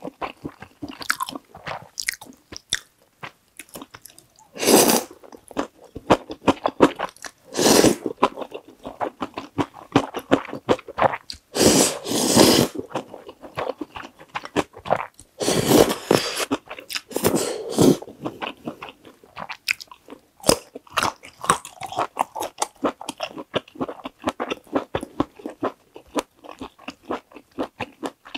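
Close-miked eating sounds: wet chewing clicks of creamy spicy fried noodles and sausage, broken several times by longer noodle slurps.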